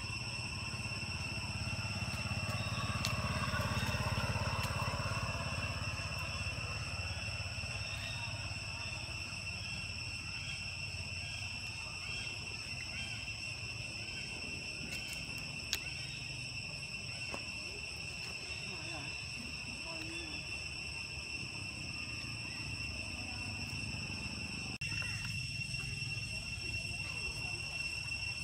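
Steady high-pitched insect drone, one unbroken buzzing tone with overtones, over a low outdoor rumble.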